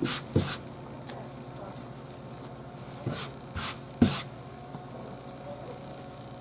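A hand swishing across a plastic cutting board to spread flour, in a few quick brushes, with soft thuds of bread dough being handled and set down; the loudest thud comes about four seconds in. A steady low hum runs underneath.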